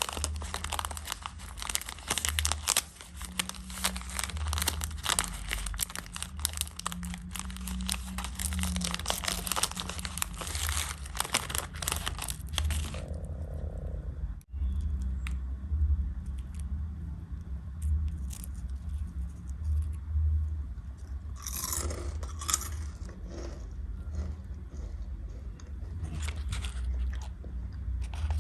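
Candy and snack wrappers crinkling and tearing as they are unwrapped, thick and continuous for about the first half. After that come sparser rustles and clicks of handling, with one short burst of crinkling about two-thirds through, over a steady low rumble.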